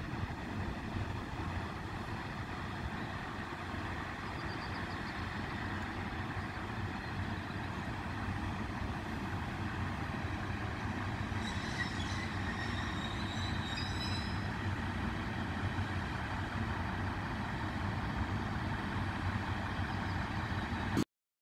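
Steady low rumble of a freight train and its PKP Cargo electric locomotive, with a few brief high squeaks about twelve seconds in. The sound cuts off abruptly near the end.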